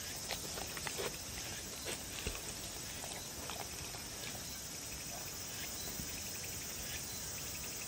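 A dog licking and chewing food crumbs off a wooden board: small wet smacks and tongue clicks in the first few seconds, which stop about halfway through as it lifts its head.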